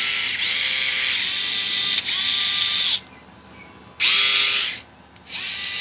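Small cordless ball-grip screwdrivers (Vessel) spinning free with no load: a high motor-and-gear whine that rises briefly as the motor spins up, then holds steady. It runs for about three seconds, stops, then comes back twice in short runs of about a second each.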